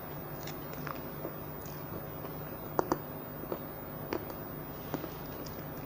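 A child eating cream pastry with a spoon: soft chewing and mouth smacks with a few small sharp clicks, the strongest pair a little under three seconds in, over a steady low hum.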